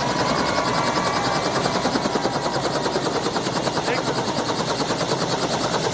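Robinson R66 turbine helicopter running on the ground with its rotor turning: a rapid, even chop of the rotor blades.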